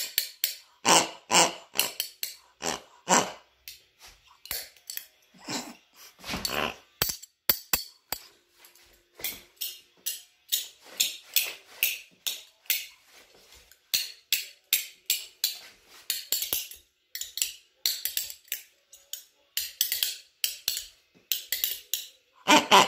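A pair of spoons played as a rhythm instrument, clacked against the hand and thigh in quick runs of clicks with short pauses between them.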